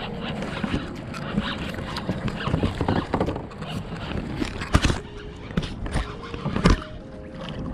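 Kayak being paddled: irregular paddle splashes and knocks, with two louder knocks about five and seven seconds in.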